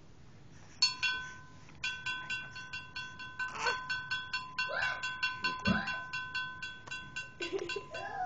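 An electronic tone pulsing in a fast, even rhythm, about six or seven beats a second, starting about a second in and stopping near the end, with a few short rising-and-falling vocal squeals over it.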